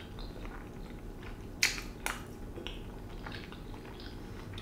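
A person chewing a soft mouthful of macaroni and cheese, with faint wet mouth sounds and a couple of sharper clicks about a second and a half and two seconds in.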